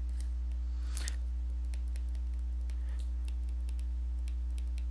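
Steady low electrical hum, with light, scattered clicks and taps of a stylus writing on a tablet screen.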